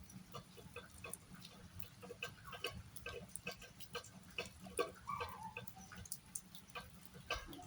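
Rain dripping: water drops falling irregularly onto hard surfaces as many sharp separate ticks, several a second, with no steady downpour hiss.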